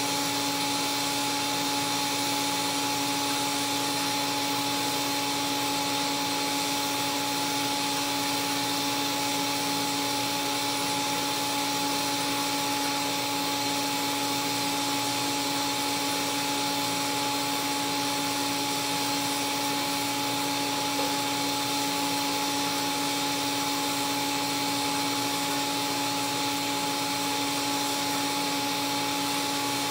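TIG welding arc on carbon steel pipe during a laywire root pass, hissing steadily without a break, with an even hum of two steady tones underneath.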